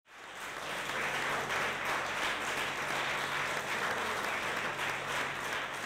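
Seated audience applauding steadily, fading in over the first second.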